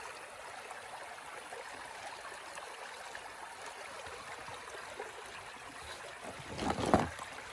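A small stream running with a steady, even rush of water. Near the end a brief louder noise cuts through it.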